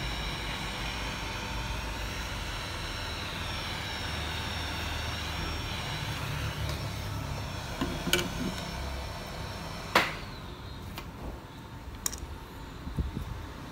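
Handheld hot air gun blowing steadily as it heats a phone screen's edges to soften the adhesive underneath. About ten seconds in there is a sharp click and the blower noise drops, followed by a few light clicks of small tools being handled.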